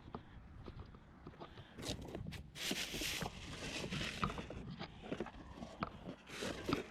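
Footsteps on hard ground, with irregular knocks and rustling from items being carried and handled.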